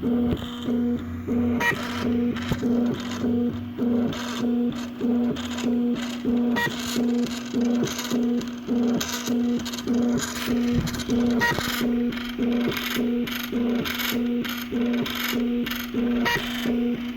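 Homemade wooden 3D printer printing, its stepper motors humming a steady tone under an even rhythm of repeated moves, about three pulses every two seconds. The builder finds the running too noisy and is tracing a noisy part.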